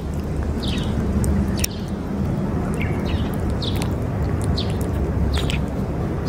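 A cat eating wet cat food from a metal dish: short, wet licking and chewing clicks every half second to a second, over a steady low rumble.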